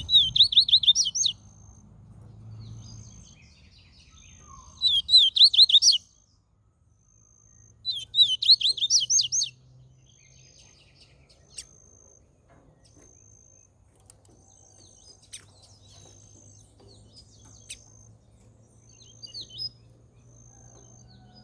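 Double-collared seedeater (coleiro) singing: three short, loud bursts of rapid high whistled notes a few seconds apart, then only faint chips.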